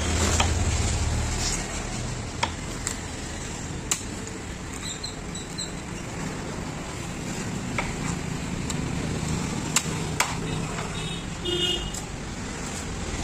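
Heavy knife chopping through a large fish onto a wooden block: sharp, irregular knocks, a few louder ones around two and a half, four and ten seconds in. Under it, steady road traffic, with a vehicle's low rumble loudest in the first second and a faint horn near the end.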